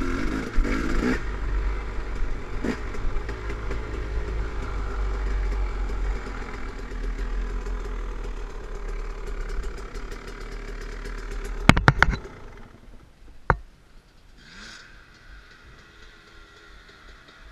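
Dirt bike engine running at low throttle on a rough trail, with chassis and camera-mount clatter. A few sharp knocks come about twelve seconds in, then one more a moment later, after which the engine sound falls much quieter.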